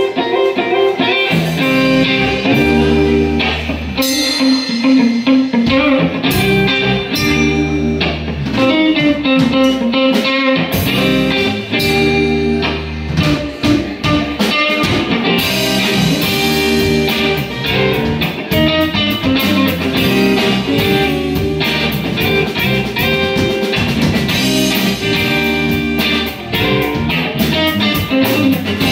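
Live rock trio playing without vocals: electric guitar, bass guitar and a drum kit, loud and continuous.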